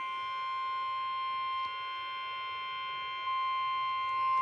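NOAA Weather Radio 1050 Hz warning alarm tone: one steady, unbroken high tone. It is the alert signal that comes before a warning broadcast, here a tornado warning.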